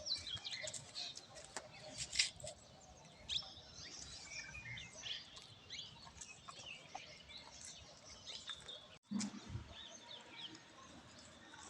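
Small birds chirping, many short overlapping calls, with scattered light clicks. The sound cuts out for an instant about nine seconds in.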